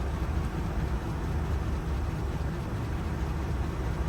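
Steady low rumble of a vehicle engine idling, with no distinct clicks or changes.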